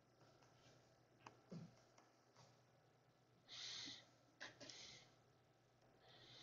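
Near silence in a small room, with a few faint clicks of a stylus writing on a tablet and a couple of soft breath-like hisses about midway.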